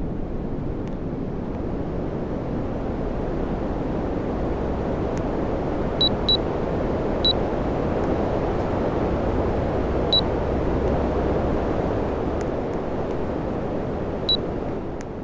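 Air conditioner running with a steady fan and airflow noise, with five short high electronic beeps from about six seconds in.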